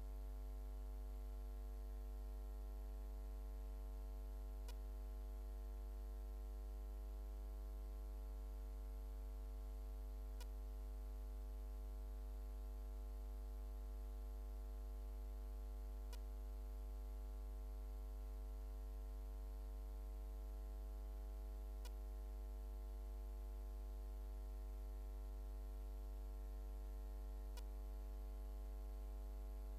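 Steady electrical mains hum from the chamber's microphone and recording system, with a faint click about every six seconds.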